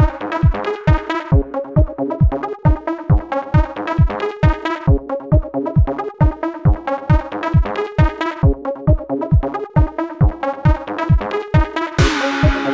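Electronic dance music with a steady four-on-the-floor kick drum, about two and a half beats a second, under synthesizer chords.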